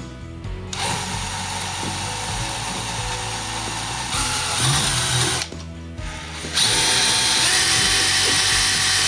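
Power drill drilling out the rivets that hold an RV window's side latch, running in two steady bursts with a motor whine. There is a short pause about five and a half seconds in, and the second burst is louder.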